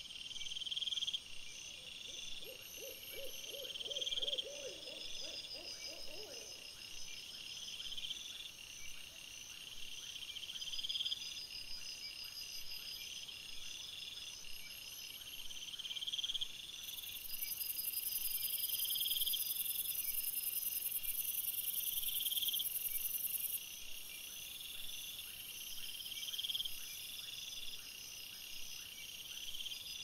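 Night insects, crickets, trilling in high, evenly repeated chirps about once a second. A louder, higher hiss joins for several seconds in the middle, and a brief lower pulsed trill sounds a few seconds in.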